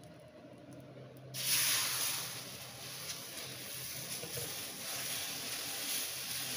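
Sprouted green moong dosa batter sizzling as it is poured onto a hot, oiled dosa tawa about a second and a half in. The sizzle is loudest at first, then settles into a steady hiss as the ladle spreads the batter.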